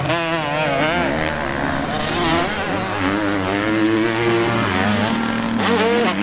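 KTM motocross bike engines revving hard on a dirt track, the pitch swinging up and down quickly as the throttle is worked, with a longer rising rev in the middle.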